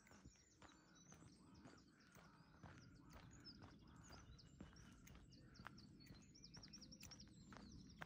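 Several songbirds singing and chirping, with a quick run of repeated high notes near the end, over the walker's soft, regular footsteps on the path.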